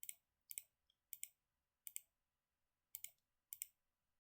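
Computer mouse clicking: about six quick, sharp clicks at uneven intervals, each a short press-and-release double.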